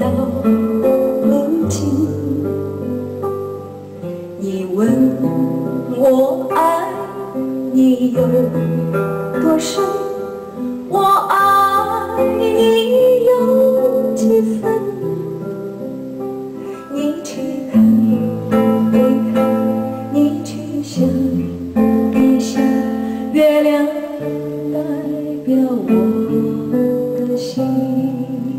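Acoustic guitar music played through a single-ended 100TH/805 tube amplifier, a slow melody of held notes.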